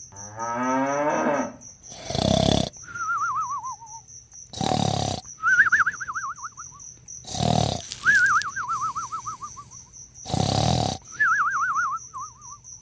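Cartoon snoring sound effect: four loud rough snores, each followed by a wavering whistle that slides down in pitch, over a steady pulsing chirp of night insects. A brief rising tone opens it.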